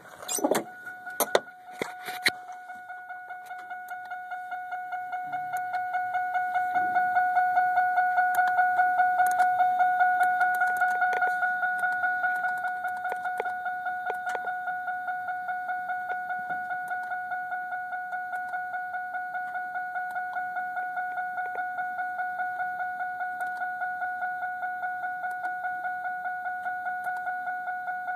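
Electronic beeping on one steady pitch, about three beeps a second, that goes on without a break; it grows louder for the first several seconds and then holds. A few sharp clicks or knocks come in the first two seconds.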